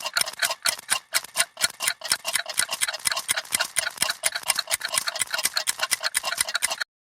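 Several clocks ticking rapidly and out of step with each other, making a dense clatter of sharp ticks. The ticks grow busier about two seconds in and cut off abruptly near the end.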